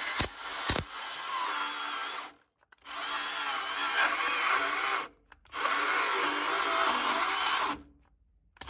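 Milwaukee Fuel cordless band saw running in three bursts of about two seconds each, its blade cutting through the metal screw base and plastic body of an LED light bulb. Two sharp clicks come in the first second.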